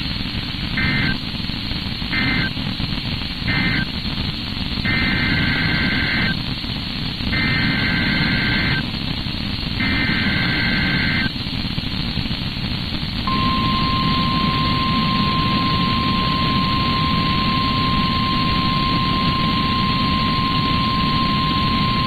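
NOAA Weather Radio Emergency Alert System tones received through radio static hiss. First come three short bursts of two-tone SAME data warble, then three longer SAME header bursts, then the steady 1050 Hz warning alert tone, held for about nine seconds. The short bursts are the end-of-message code closing one Winter Storm Warning, and the longer ones are the header opening the next.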